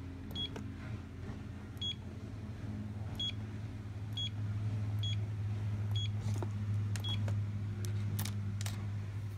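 Rio Salon Laser hair removal unit's control panel beeping at each button press: seven short, high beeps about a second apart as the power level is stepped down. A steady low hum runs beneath, growing louder about four seconds in, and a few sharp clicks come near the end as the key switch is handled.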